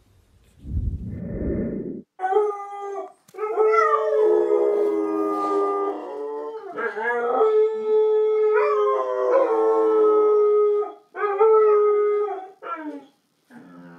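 Two dogs howling together in long, wavering howls with short breaks, starting about two seconds in after a brief low rumble.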